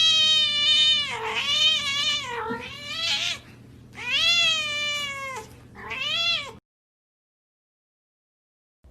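A domestic cat yowling in about five long, drawn-out meows that bend up and down in pitch. It cuts off abruptly into dead silence about two-thirds of the way through.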